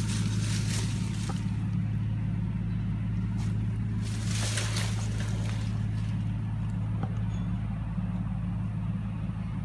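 An engine running steadily at one constant speed, with two brief rushes of hissing noise, one at the start and one about four seconds in.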